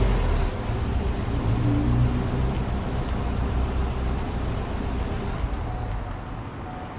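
Subaru Impreza WRX STi Version V (GC8) turbocharged 2.0-litre flat-four heard at the exhaust tailpipe, idling with a low, uneven rumble as it settles after a rev. It grows gradually quieter, fading most near the end.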